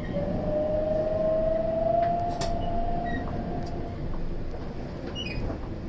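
Electric train running, with a rumble under a steady whine that rises slowly in pitch and fades out about four seconds in; a single sharp click about halfway through.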